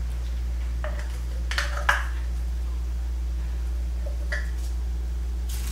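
A few light clinks and taps from a spice container and a cooking pot being handled, over a steady low hum.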